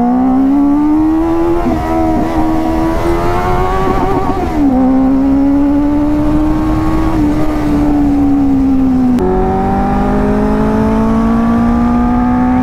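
Benelli 600i motorcycle's inline-four engine pulling under acceleration, its pitch climbing steadily, dropping sharply about four and a half seconds in and again about nine seconds in, then climbing again.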